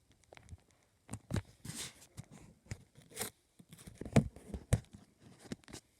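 Handling noises: an irregular string of taps and clicks, with two short rustling scrapes about a second and a half in and near the middle, and the loudest knocks a little after four seconds.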